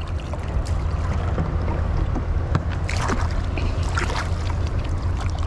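Water sloshing and splashing in waist-deep muddy water over a steady low rumble, with a few sharper splashes about three and four seconds in.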